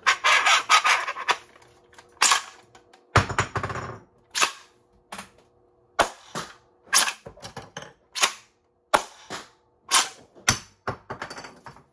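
3D-printed pump-action foam-dart shotgun blaster being primed and fired over and over: a string of about a dozen sharp plastic clacks and knocks from the pump handle and the spring plunger, the heaviest about three seconds in.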